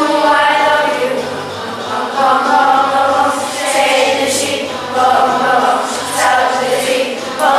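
A group of children singing a song together in chorus, in sustained phrases.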